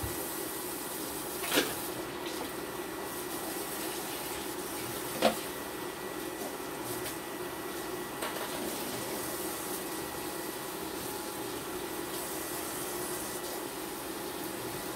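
Tap water running steadily into a kitchen sink during dishwashing, with two short knocks of dishes, the second a little louder.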